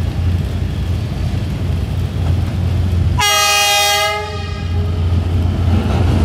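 Diesel locomotive horn sounding one loud blast of about a second, starting about three seconds in, over a steady low rumble of the approaching train and waiting traffic.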